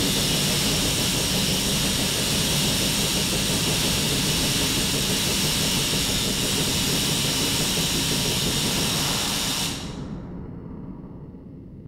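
A 1-million-volt Tesla coil running, with the steady, harsh hiss of its spark discharge arcing to the pyramid. It cuts off suddenly about ten seconds in, and a low remainder dies away.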